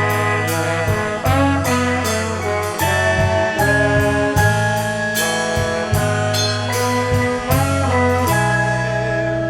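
Live jazz-rap band playing an instrumental passage between verses: bass and sustained chords over a steady beat. Near the end the beat stops and a chord is held.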